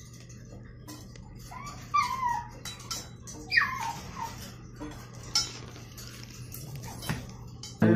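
Corgi puppy at play giving short, high yips that fall in pitch, the clearest about two seconds in and again a second and a half later, with scattered clicks of claws on a tile floor.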